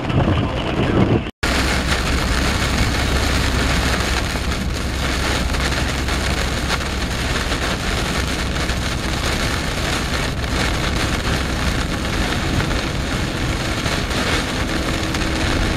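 Steady rush of a car driving on a wet road in the rain, tyre and rain noise over a low rumble from the vehicle. It breaks off for a moment about a second in, then runs on evenly.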